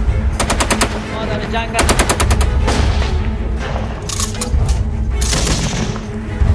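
Short bursts of rapid automatic gunfire, three of them, over a steady low rumble.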